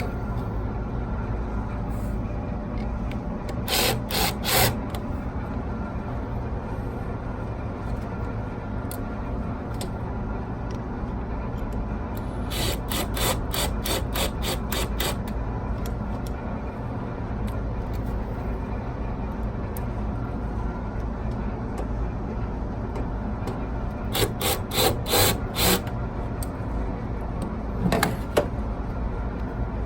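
Hand-tool work on a rooftop HVAC unit: short runs of rapid clicking or ratcheting a few seconds in, midway, and twice near the end, over a steady low rumble.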